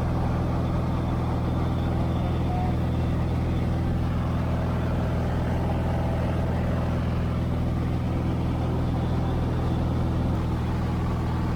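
Steady drone of a 1962 Cessna 150's four-cylinder Continental O-200 engine and propeller, heard inside the cabin, holding a constant pitch and level.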